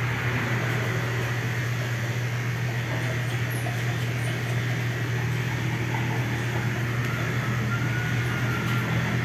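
Electric pet grooming clipper running with a steady low hum while it is passed over a chow chow's body coat, clipping it short.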